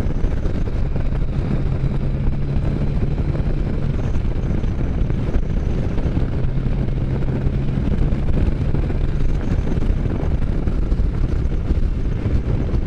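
Can-Am Spyder engine running at a steady cruising speed, with a steady hum that fades and returns, under heavy wind rumble on the microphone.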